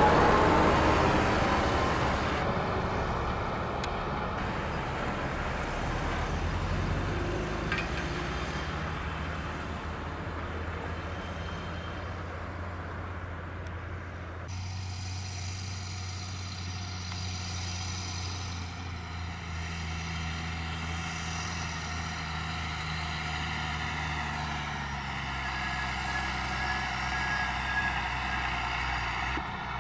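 Terra-Gator 8103 lime spreader's diesel engine running steadily as it drives across a stubble field spreading lime. The sound changes at a cut about halfway through, after which a high steady whine sits over the engine.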